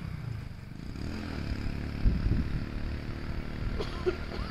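Motorcycle engine running, with a brief rev about two seconds in.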